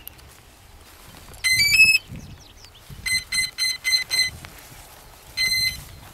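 Start-up beeps of the octocopter's brushless motor speed controllers as the LiPo batteries are plugged in: a quick rising run of three or four tones, then five short even beeps, then one longer beep, the sign that the controllers have powered up and armed.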